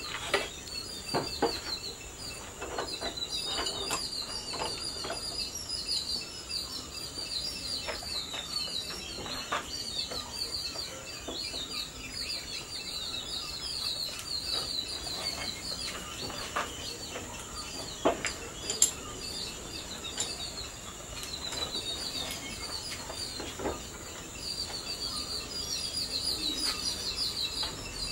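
Birds chirping in short, repeated falling calls over a steady high tone, with occasional light metal clicks and knocks from hand-working a steel blade in a vise, the sharpest about 18 seconds in.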